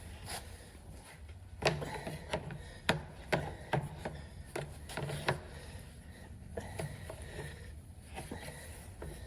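Irregular knocks and clicks of tools and parts being handled during repair work, a cluster of sharp ones from about a second and a half to five seconds in, fewer later, over a low steady hum.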